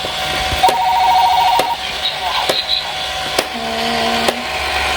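Electronic sound effects from a battery-powered toy level-crossing set: a steady tone throughout, a fast pulsing beep about a second in, and a lower held two-note tone near the end, with scattered sharp clicks.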